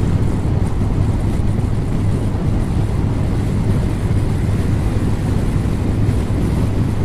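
Motorcycle riding at speed: a steady engine drone under heavy rushing wind on the microphone.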